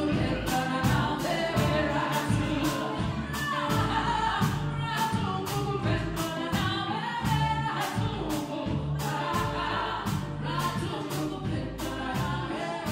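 Live band playing: singing over guitars, keyboard and a drum kit keeping a steady beat.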